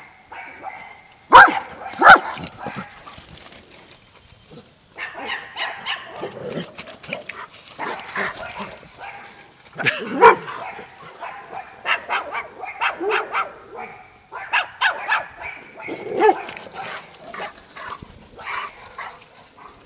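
Dogs barking: two sharp, loud barks just over a second in, then bouts of repeated barking through the rest.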